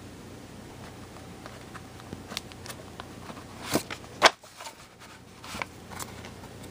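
Light clicks and paper rustles of a metal staple being pushed through nail holes in a thick stack of paper, with a sharp click a little past the middle.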